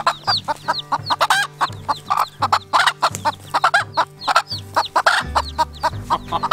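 Baby chicks peeping rapidly in a stream of short, high, falling chirps, with their mother hen clucking in louder calls every second or so.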